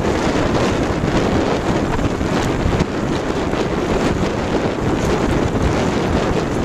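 Strong wind buffeting a smartphone microphone fixed to a sailboat's gunwale, over the steady rush and splash of lake water along the hull while under sail.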